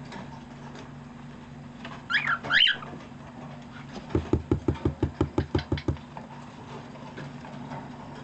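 Cockatiel gives two short, loud chirps, then taps its beak on the cardboard box in a fast, even run of about a dozen knocks, about six a second.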